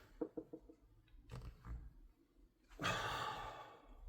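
A few light clicks and taps of metal parts as a tight pin is pressed into an airsoft rifle's receiver, then, about three seconds in, a long breathy exhale of effort lasting about a second.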